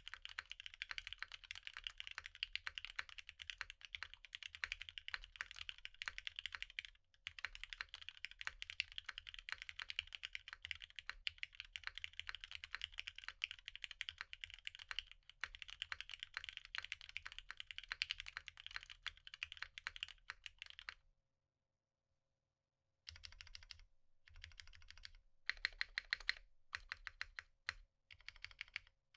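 Fast typing on a custom Geonworks F1-8X tenkeyless keyboard with an aluminum plate, lubed Hyperglide Black linear switches and NicePBT PBT keycaps, a steady run of many keystrokes a second. It stops for about two seconds two-thirds of the way through, then comes back in short bursts.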